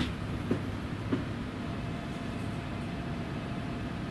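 Steady low hum of an N700S Shinkansen train standing at the platform, with a few light knocks in the first second or so.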